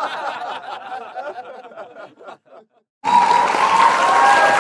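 Audience laughter, likely a laugh track, dying away. About three seconds in, loud applause breaks out, with a few whoops over it.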